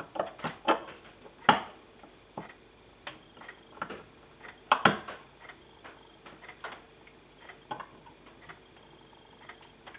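Scattered small clicks and taps of fingers handling a drone flight controller board and pushing a small plastic wire connector into its socket, with sharper clicks about one and a half and five seconds in.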